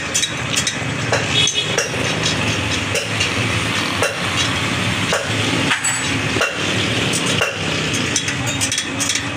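Steel spokes of a Honda CD 70 motorcycle wheel clicking and clinking against each other and the chromed rim as they are threaded into the hub and rim by hand. Irregular sharp metallic clicks sound over a steady background rumble.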